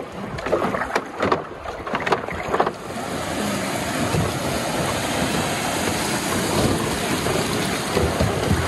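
Steady rushing of river water around a wooden raft. A few brief voices and knocks sound in the first three seconds, then only the even water noise remains.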